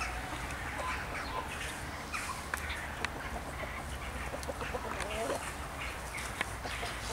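Farmyard fowl clucking and calling in short, scattered bursts over a steady low rumble, with a few sharp clicks in between.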